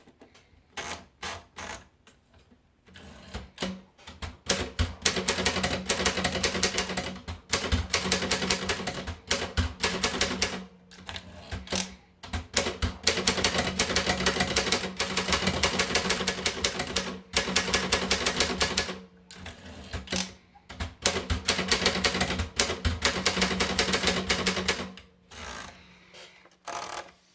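Optima Elite typewriter being typed on: a few single keystrokes, then long runs of fast key strikes broken by short pauses, with a low steady hum beneath the typing.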